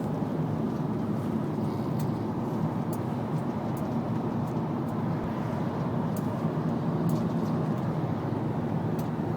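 Steady low rumble of road and engine noise inside a moving taxi cab.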